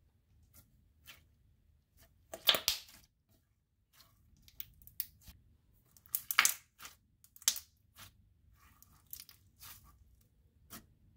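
Glitter slime being squeezed, pressed and stretched by hand, giving short sticky pops and crackles at irregular intervals. The loudest come about two and a half and six and a half seconds in.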